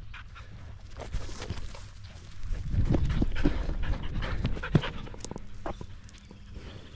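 A dog panting close by, with rustling and a few sharp knocks, loudest in the middle.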